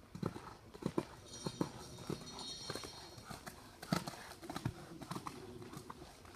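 A horse's hooves clip-clopping in an uneven rhythm as it is worked in dressage.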